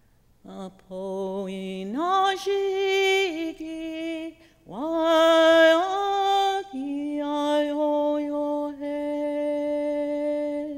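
A woman singing a Lakota morning-star song of the Sundance, solo and unaccompanied, in long held notes. Her voice slides up into the first two phrases and settles on a lower held note near the end.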